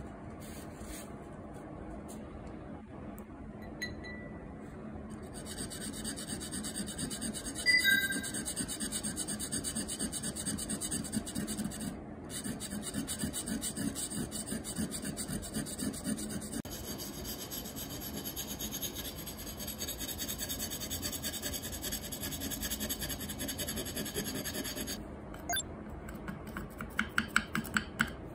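A wet whetstone rubbed back and forth in quick strokes over a ceramic plate, grinding at sabi urushi lacquer putty along the kintsugi repair lines; the putty has set too hard. Near the end, short sharp scratches come from a utility knife blade scraping at the hardened putty.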